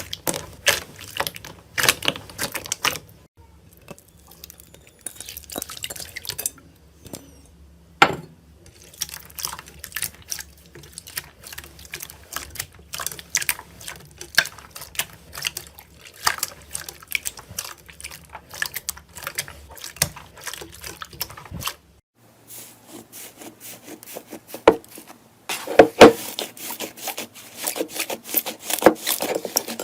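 Slime being squeezed and worked by hand, making irregular runs of wet clicks, pops and crackles.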